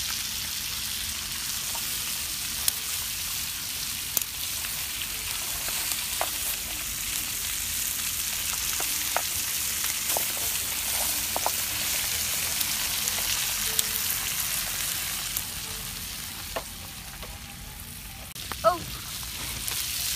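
Fish sizzling on a hot corrugated metal sheet over an open wood fire: a steady hiss with scattered sharp pops. The hiss dies down a few seconds before the end.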